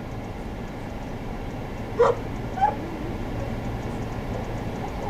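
Steady hum of an idling vehicle engine, with two short high yelps about half a second apart a couple of seconds in, the first sweeping up in pitch.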